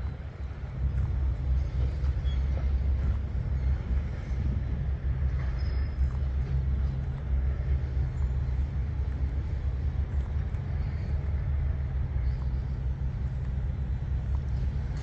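Combine harvester's diesel engine running steadily with a low drone. It gets a little louder about a second in, then holds level.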